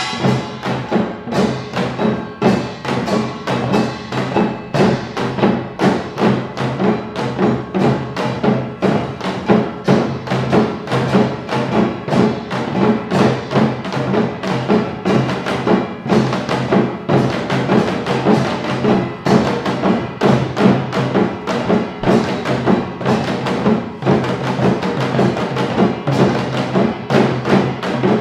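Korean Utdari samulnori percussion: janggu hourglass drums and buk barrel drums beating a fast, steady rhythm together, with kkwaenggwari small gongs and a jing gong.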